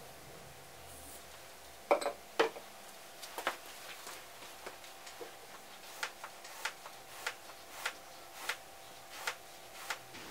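Benchtop liquid-filling machine dispensing silicone oil into a glass bottle: two loud clicks about two seconds in, then a run of evenly spaced clicks, about one every two-thirds of a second, over a faint steady hum.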